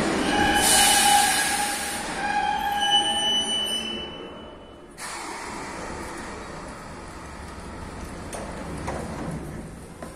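Metro train braking to a stop at the platform, squealing in several high steady tones over its hiss for the first few seconds. It then settles into a steadier, quieter noise as it stands at the platform.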